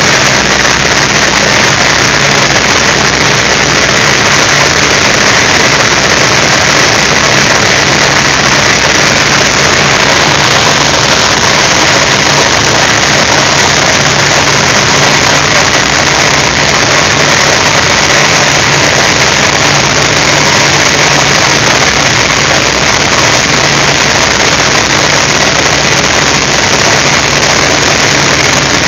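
North American T-28C Trojan's Wright R-1820 nine-cylinder radial engine running steadily in flight, heard from inside the cockpit with a constant loud rush of air over the canopy.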